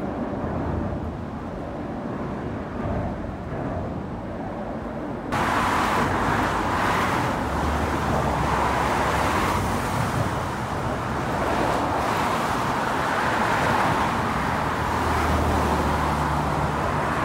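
Car traffic on a bridge heard from beneath the steel deck: a dull, muffled rumble of cars driving overhead. About five seconds in it cuts suddenly to the louder, brighter noise of cars driving past on the bridge roadway, with tyre hiss.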